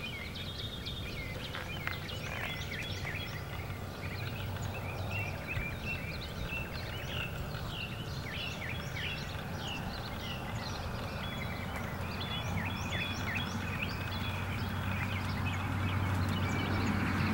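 Birds chirping, many short repeated calls, over a steady low hum that grows slightly louder near the end.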